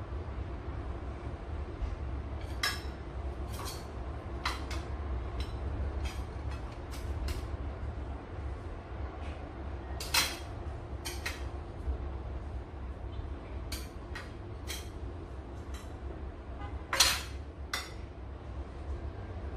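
Metal fork clinking against a bowl and plate while Oreo truffle balls are dipped in melted chocolate. The clinks are scattered and irregular, two of them louder about ten seconds in and near the end, over a steady low hum.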